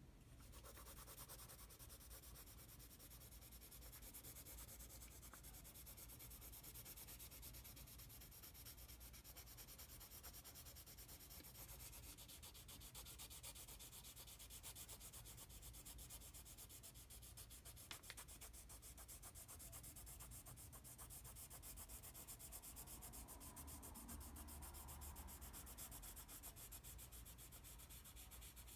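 Pencil graphite shading on paper: faint, rapid back-and-forth scratching strokes that keep going steadily, with one small click about halfway through.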